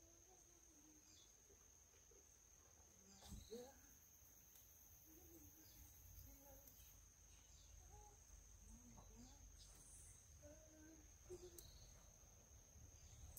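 Faint, steady, high-pitched insect drone, a cricket-like trill, over near-quiet outdoor air, with two soft knocks about three seconds in and near the end.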